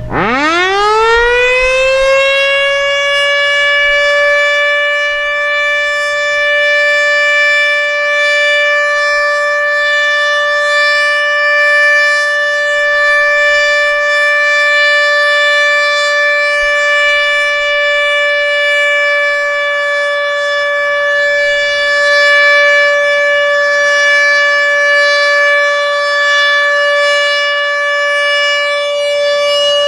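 ASC OM-120 tornado siren winding up, its pitch rising fast over about two seconds, then holding one steady tone. This is the steady Alert signal sounded in a scheduled siren test.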